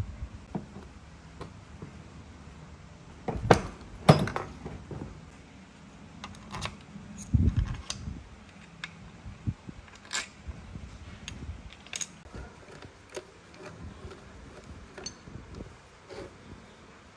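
Metal engine parts and small bolts clinking and knocking against an aluminium motorcycle crankcase and the workbench as the engine is reassembled: two sharp knocks about three and a half seconds in, a duller thud about seven seconds in, and light scattered clicks throughout.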